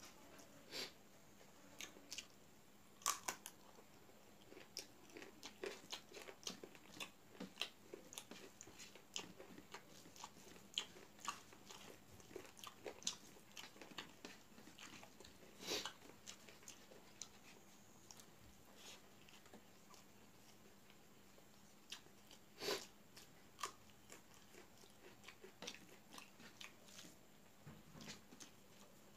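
Close-up eating sounds of a person chewing rice and chicken curry eaten by hand: irregular clicks and smacks of the mouth, with a few louder ones and a quieter stretch past the middle.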